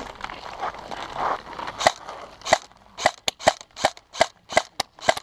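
Airsoft gun firing a quick string of single shots, sharp snapping cracks about three a second, starting a couple of seconds in.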